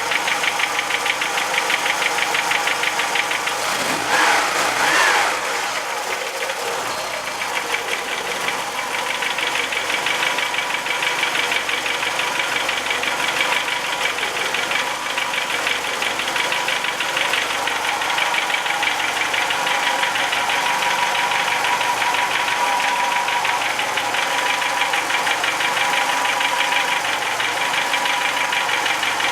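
VW Jetta Mk2's 1.8 GX four-cylinder petrol engine idling cold with a rapid, steady knocking tick that keeps time with the engine, the strange knock heard on a cold engine. About four seconds in there is a brief louder swell.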